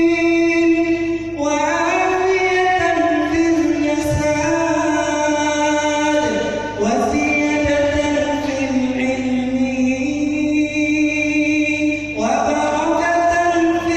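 Unaccompanied solo voice of an aspiring imam chanting a prayer melodically, holding long, ornamented notes in phrases that break about 1.5 seconds, 7 seconds and 12 seconds in.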